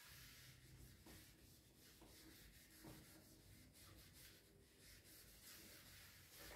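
Faint rubbing of a handheld whiteboard eraser wiping marker writing off a whiteboard, in near silence.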